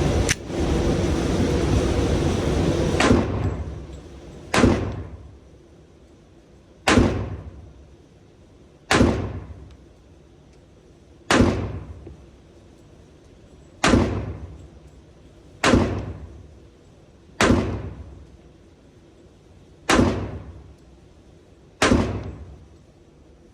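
Glock pistol shots fired one at a time, about one every two seconds, each a sharp crack with a fading ring. The first three seconds hold a continuous stretch of loud noise.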